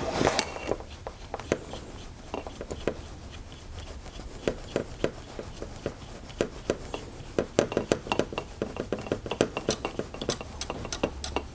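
Irregular light metallic clicks and taps as the FX Wildcat's rear tube adapter is unscrewed by hand from the rifle's action. The clicks come thicker toward the end.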